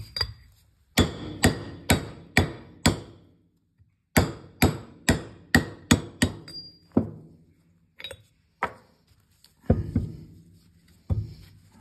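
Hammer blows on a steel mandrel, driving a rotary lip seal into a Nuffield/Leyland tractor's PTO nose casting: two quick runs of sharp, ringing strikes about two a second, five and then seven, while the seal is not yet seated all the way home. A few single knocks follow in the later part.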